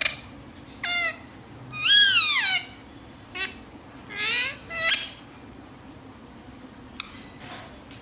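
Indian ringneck parakeet calling: a run of about six short, high-pitched squawks in the first five seconds, most falling in pitch. The longest and loudest rises and then falls about two seconds in.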